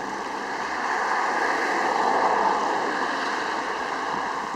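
Fountain water splashing steadily into its basin, swelling slightly about two seconds in.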